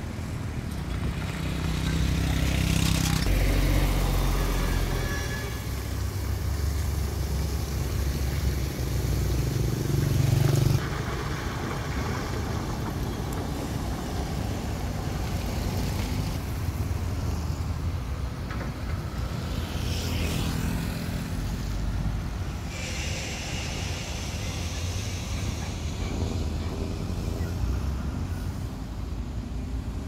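Vehicle engines running with road traffic passing, a heavy low rumble swelling in the first few seconds and again about ten seconds in, then dropping off suddenly about eleven seconds in.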